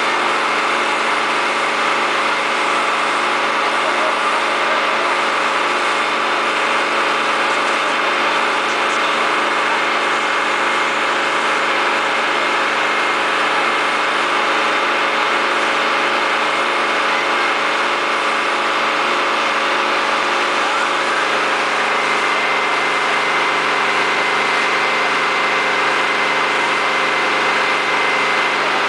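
Fire engine's engine running steadily, driving the pump that feeds the hose lines, with a faint regular pulse in its drone.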